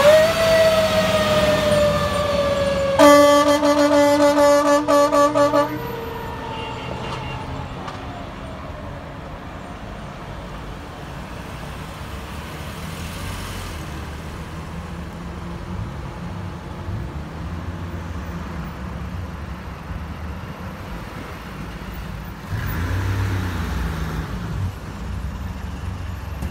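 International Pierce wildland brush truck's siren winding down, cut across about three seconds in by a horn blast of almost three seconds, then the siren tone falling away further. After that a truck engine runs steadily as it pulls away, louder again near the end.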